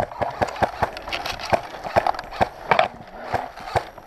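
Footsteps at a quick walking or jogging pace, about three to four steps a second, each a short knock on the ground.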